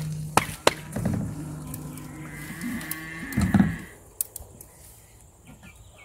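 A cow mooing: one long, low call that ends a little past halfway, with two sharp knocks in the first second.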